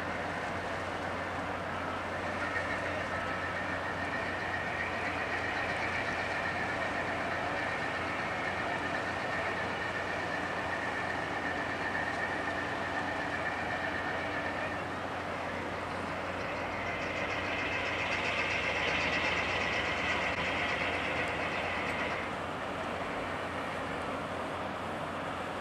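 Steady engine drone of boats on the water. Over it runs a hissing rush that rises about 2 s in, drops away about 15 s in, and returns louder from about 17 s to 22 s.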